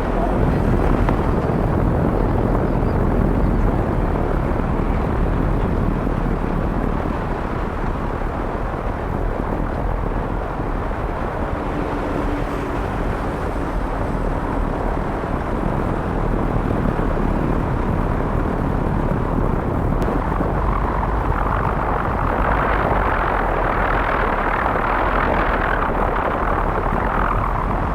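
Strong wind buffeting the microphone: a steady, loud rumbling rush with no clear tone. A brighter hissing rush swells about three quarters of the way through and eases near the end.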